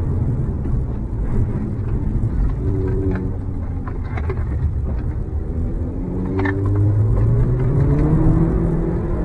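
Audi S3 8L's 1.8-litre turbocharged four-cylinder engine heard from inside the cabin while driving hard on track: the revs climb, drop back through the middle, then climb steadily again in the second half. A few short clicks sound over it near the middle.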